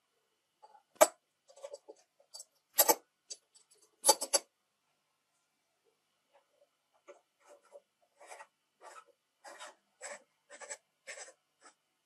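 Brass parts of the tool being handled, with a few sharp clicks and clinks, then the threaded brass cap screwed onto the brass body tube: a run of short scraping strokes, about two or three a second, as the threads turn.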